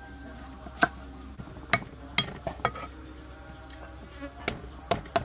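Cleaver chopping a piece of root on a thick wooden stump chopping block: about eight sharp knocks at an uneven pace, in two clusters with a pause of about a second and a half between them.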